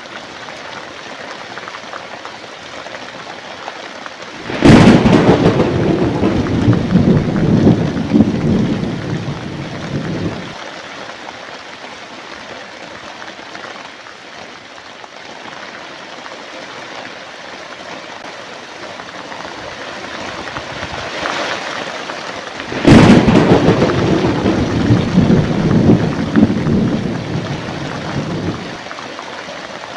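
Steady rain with two claps of thunder about eighteen seconds apart, each a sharp crack followed by a rumble of about six seconds that cuts off abruptly.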